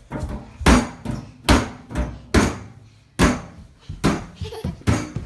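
A toddler's hands slapping and banging on a kitchen cabinet door: a series of loud, irregular bangs, about one or two a second.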